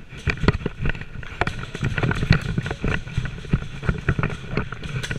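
Irregular knocks and clicks, several a second: footsteps and the rattle of gear on a player moving quickly across a concrete floor.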